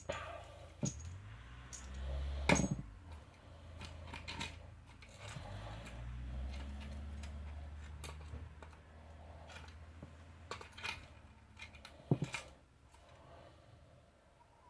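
Small parts and tools being handled on a workbench: scattered clicks and taps, the sharpest about two and a half seconds in and again near twelve seconds, over a low rumble that fades after about eight seconds.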